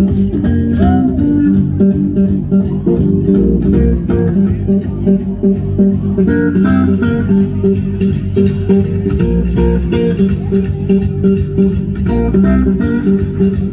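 Live country band playing an instrumental stretch: electric guitar over upright bass and drums, with a steady beat.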